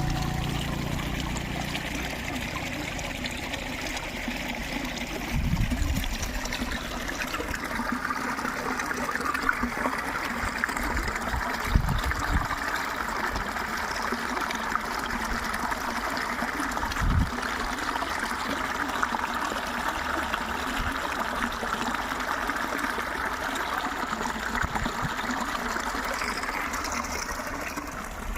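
Running water trickling steadily, like a small stream. A few brief low thumps come through, around a quarter, a half and two-thirds of the way in.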